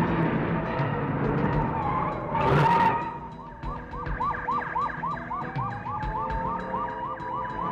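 Stock police sirens: a fast yelping siren sweeps up about three to four times a second, joined by a slower wailing siren that rises and then falls. Before the sirens there is a noisy stretch that ends in a sharp burst about two and a half seconds in.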